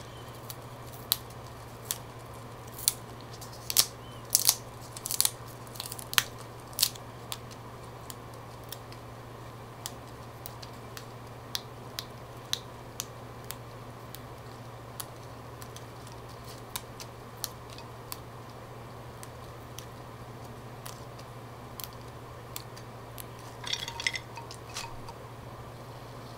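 Fresh Thai basil and herb sprigs being stripped and snapped by hand: scattered crisp snaps and leaf rustles, thickest in the first several seconds and again in a short cluster near the end, over a low steady hum.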